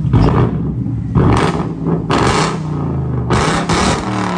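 Ford Mustang's aftermarket exhaust as the engine is revved in place: five quick blips of the throttle, the last two close together, each dropping back toward idle.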